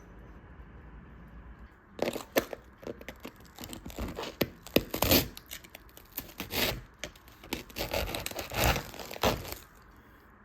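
Crisp crackling, tearing and scraping as a grilled mushroom-and-cheese sandwich is pulled apart and cut with a fork, in irregular bursts from about two seconds in until shortly before the end, over a faint low hum.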